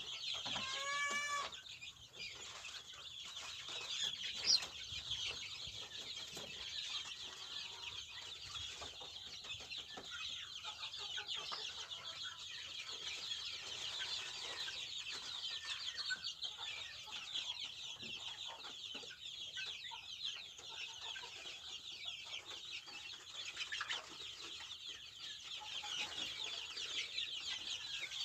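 Native Indonesian kampung chickens clucking, over a dense, continuous chorus of high peeping from many chicks. A single louder call stands out about a second in.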